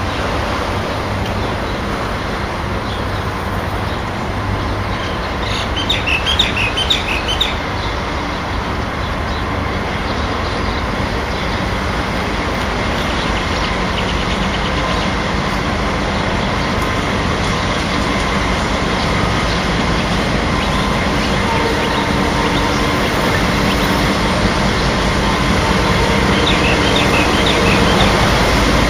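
Pacific National NR class diesel-electric locomotives running as they approach and pass, a steady engine drone that grows slowly louder. A few short high chirps come about six seconds in and again near the end.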